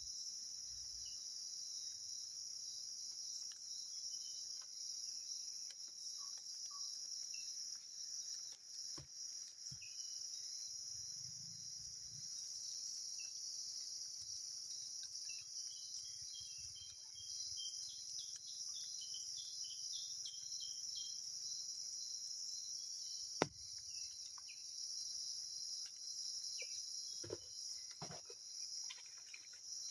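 Steady night chorus of forest insects such as crickets: a continuous high-pitched trill. A sharp click or knock comes about two-thirds of the way through, and several more faint knocks come near the end.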